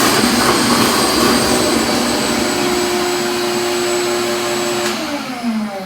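Vacuum motor running steadily, sucking the water out of a toilet, then switched off near the end, its pitch falling as it winds down.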